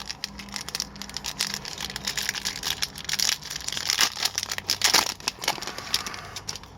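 Hockey card pack's wrapper being torn open and crinkled, with cards handled: a dense run of rustles and crackles.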